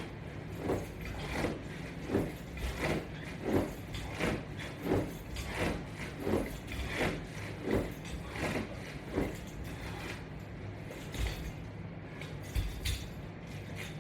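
Crunches done against Latch Bar resistance straps, with a short rhythmic sound on each repetition, about one every 0.7 s. The repetitions stop about nine and a half seconds in.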